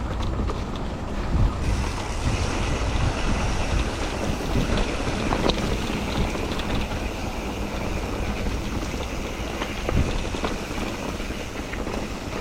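Mountain bike rolling along a dirt trail: steady tyre and wind noise on the microphone, with scattered sharp knocks and rattles from the bike over bumps.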